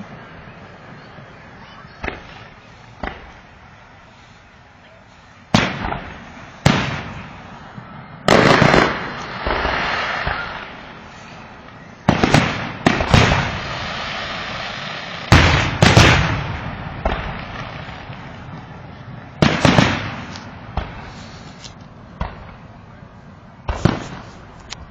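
Fireworks going off: about a dozen sharp bangs at irregular intervals, each dying away slowly, with spells of crackle after some of the bursts.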